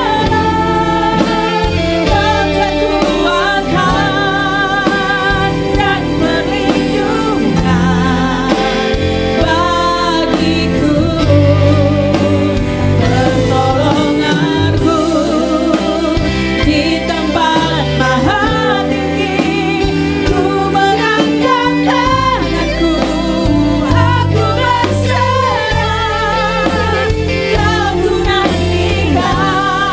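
Three women singing a worship song together into microphones, their voices wavering with vibrato, over instrumental accompaniment with bass notes.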